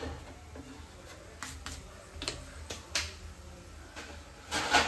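Scattered light taps and clicks of a wooden spatula against a tawa, with a louder cluster of clatter near the end.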